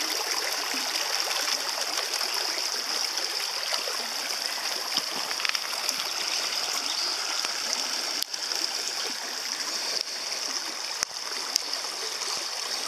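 Shallow creek rushing over a stony bed, a steady babble of running water, with a few small clicks now and then in the second half.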